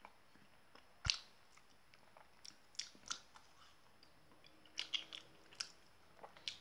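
Person biting and chewing a frozen caramel ice cream bar: a scatter of short, faint clicks, the sharpest about a second in and a small cluster near the five-second mark.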